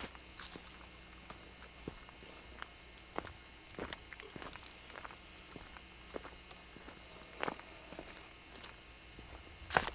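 Irregular light crackles and clicks of someone moving on foot through pine brush, branches brushing past the camcorder, with a sharper snap near the end.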